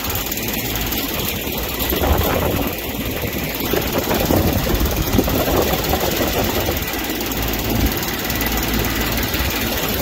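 Goodman heat pump outdoor unit running steadily in heat mode, its fan moving a lot of air, with a ticking where pine straw on the top grille is hitting the fan.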